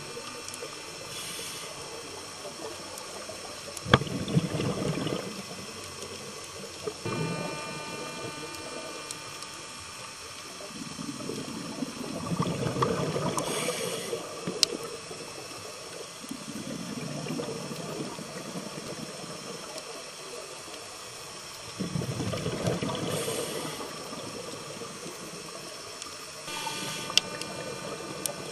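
Scuba diver's regulator underwater: bursts of exhaled bubbles gurgling and rumbling every few seconds, with a few short high hisses and sharp clicks between them.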